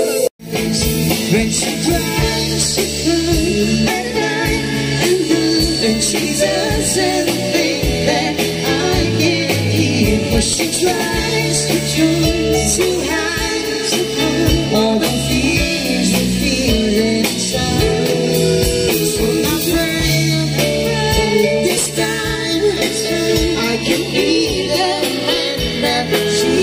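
A song with a singer over electric guitar and a full band accompaniment.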